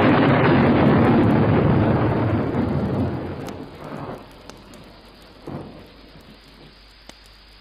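Storm sound effect: thunder rumbling over rain, fading out a few seconds in, followed by two fainter rumbles.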